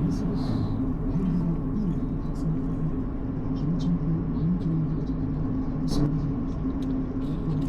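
A vehicle running steadily at speed: a low, even drone of engine and road noise with faint ticks over it.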